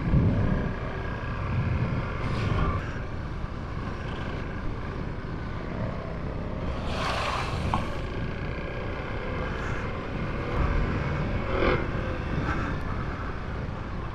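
Off-road motorcycle riding along a dirt trail, heard from the rider's own machine: engine running under varying throttle, its pitch rising and falling, over a steady rumble of wind and road noise, with a couple of short louder surges.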